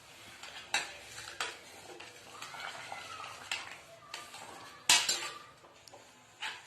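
Metal kitchen utensils clinking against a pot, a spoon knocking and scraping as the boiling decoction is handled. A series of sharp clinks, the loudest about five seconds in.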